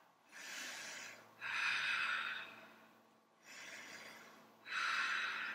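A woman's slow, deep breathing while resting after exertion: about two full breaths, each a softer breath followed by a louder, rushing one.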